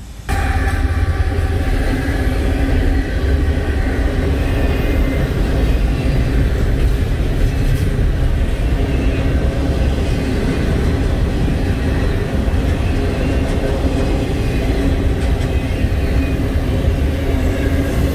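CN double-stack intermodal container train rolling past at close range: a loud, steady rumble of freight car wheels on the rails, cutting in suddenly just at the start.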